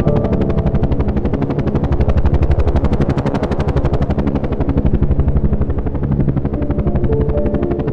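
Background music: held synth notes that change every second or so, over a fast, even pulsing of about ten beats a second.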